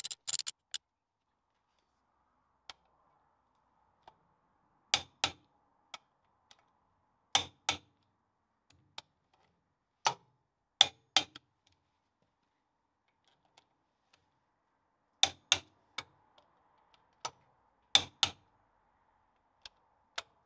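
Click-type torque wrench breaking over as the stub axle bolts reach torque: a sharp double click every few seconds, about six times. A few quick ratchet clicks at the very start.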